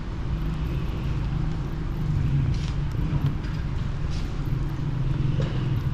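Steady low rumble of city traffic under the ambience of a wet park, with a few footsteps on a wet paved path.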